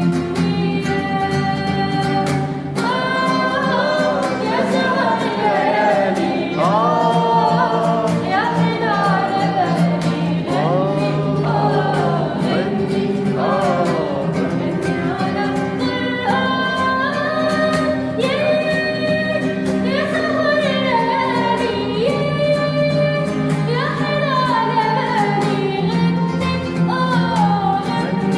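A girl singing an Arabic song, a long ornamented melodic line with sliding, melismatic pitch bends over steady sustained accompaniment.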